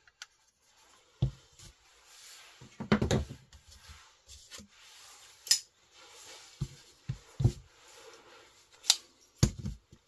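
Open Benchmade folding knives being handled and set down on a work surface: a series of dull thumps and a couple of sharp clicks from the knives knocking down and against each other, with light rustling between.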